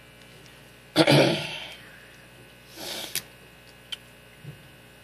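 A loud, sudden burst of breath from a person about a second in, then a softer breath about two seconds later and a few faint clicks.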